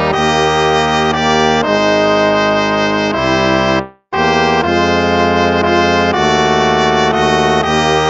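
Instrumental hymn music in slow, held chords. About four seconds in, one hymn fades out and after a brief silence the next begins.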